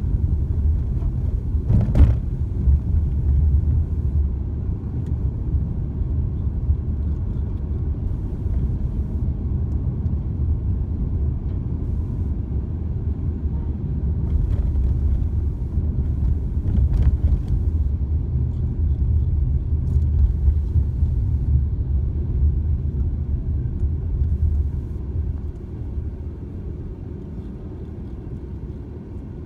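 Steady low rumble of road and engine noise heard inside a moving car's cabin, with a single sharp knock about two seconds in and a few faint clicks later. It grows quieter near the end as the car slows in a queue of traffic.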